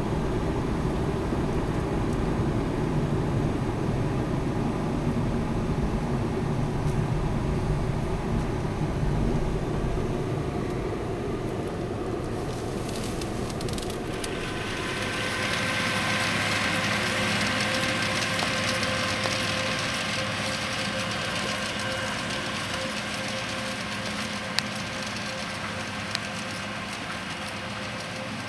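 Car cabin rumble from driving behind a tractor and loader wagon. About halfway through, the rumble gives way to a brighter, steady hiss with a thin whine as the tractor pulling the Pöttinger Europrofi loader wagon runs close by. Two brief clicks come near the end.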